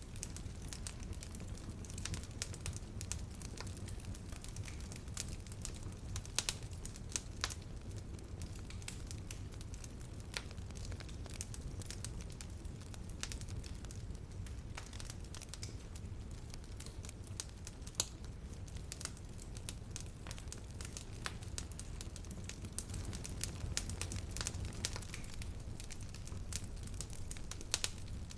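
Wood fire crackling in a fireplace: irregular sharp snaps over a low steady rumble of the flames.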